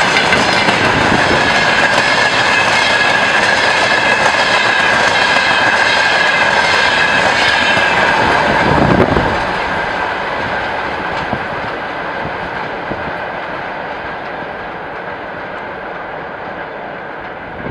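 Freight train wagons rolling past, their wheels running on the rails with a steady high ring. About nine seconds in the last wagon goes by, the noise drops sharply, and the train's rumble fades into the distance.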